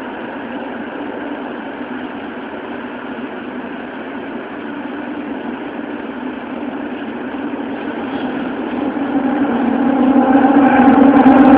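Interior running noise of an early Toei Oedo Line 12-000 series subway car, a linear-motor train with a Hitachi GTO-thyristor VVVF drive. The noise is steady at first, then grows much louder from about eight seconds in as the train gathers speed into the tunnel.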